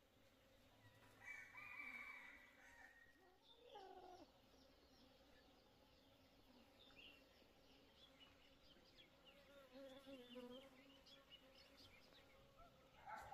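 Faint rooster crowing, one drawn-out call about a second in that trails off in a falling note, then small birds chirping in quick short notes.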